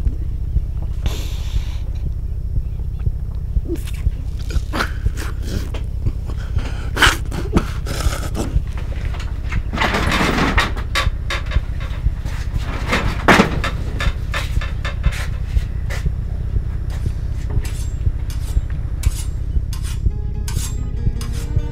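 Low, pulsing bass drone of a film score, with a person's heavy breathing in a few long breaths and scattered small clicks over it. Near the end, higher sustained musical tones come in.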